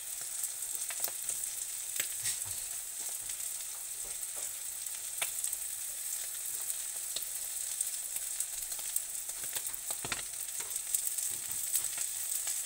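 Sardine omelette frying in oil in a skillet: a steady high sizzle with many small crackles.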